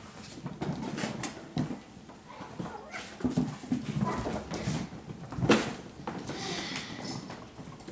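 Bengal kittens playing on a tiled floor: irregular scampering, scuffling and light knocks, with the loudest knock about five and a half seconds in.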